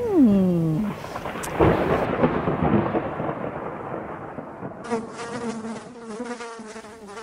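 A falling tone, then a thunder crack about a second and a half in with a rumble that fades over the next few seconds; from about five seconds in, an insect buzzing sound effect, wavering and steady.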